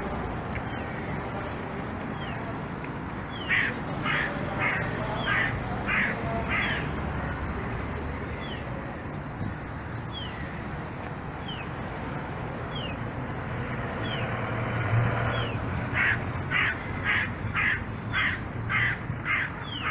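A bird giving a run of short repeated calls, about two a second, in two bouts: a few seconds in and again near the end. Under it is a steady hum of street traffic.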